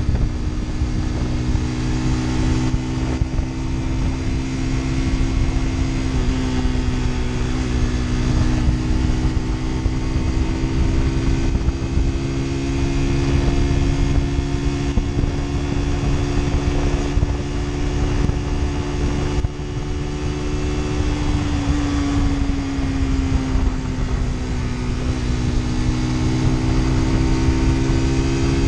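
Lexmoto Assault 125 motorcycle's single-cylinder 125cc four-stroke engine running at a steady cruise. Its pitch sags about two-thirds of the way through and climbs again, over a low wind rumble on the microphone.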